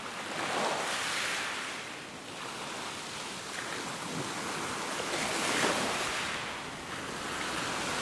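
Ocean surf washing in, a rushing hiss that swells and eases every few seconds.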